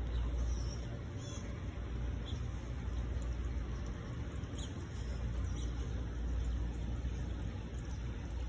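Wind buffeting the microphone with a steady low rumble, with a few faint, short, high chirps above it.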